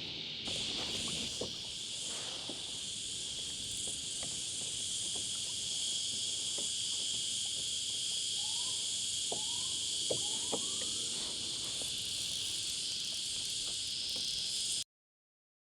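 Cicadas droning in a steady, high-pitched chorus. A few faint clicks and three or four short rising chirps come through in the middle, and the sound cuts out abruptly near the end.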